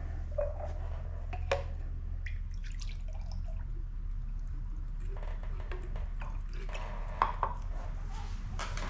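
Scattered light clicks and knocks of objects being handled and set down, over a steady low hum.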